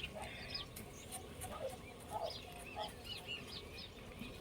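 Small birds chirping in quick short notes, with short lower calls from farmyard fowl now and then.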